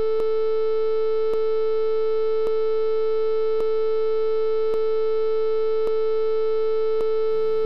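Heart monitor flatline: one continuous electronic tone held at a single pitch, with a faint tick about once a second, the sign of a heart that has stopped.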